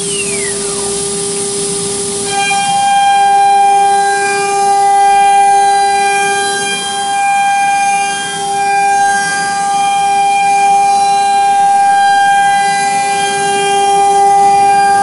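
OMNI 1325 CNC router's spindle running at speed with a steady high-pitched whine while the bit routes a pattern into a wooden board. A brief falling tone crosses the very start.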